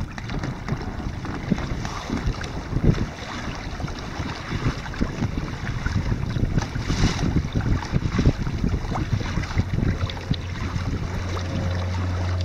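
Wind buffeting the microphone over the rush and splash of water along the hull and outriggers of a Hobie Mirage Tandem Island sailing trimaran under way. A steady low hum comes in near the end.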